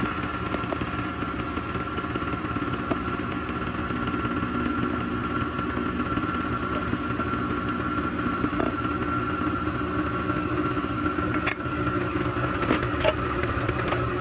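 Electric stand mixer running steadily, its motor humming with a constant whine as the beater works cookie dough while flour is added. A few light clicks come near the end.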